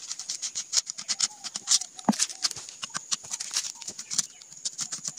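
Rapid, irregular metallic clicks and ticks of a large screwdriver working out the crankcase screws of a Honda CG125 engine, with one louder knock about two seconds in. A few short bird calls are heard in the background.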